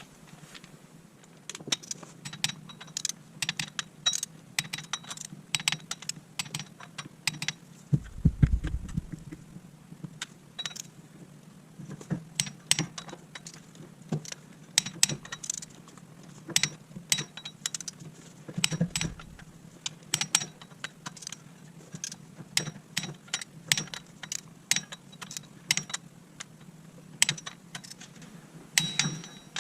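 A ratchet and torque wrench clicking and metal tools clinking as the flywheel bolts are run down and torqued. A dull low thump comes about eight seconds in, and a softer one near nineteen seconds.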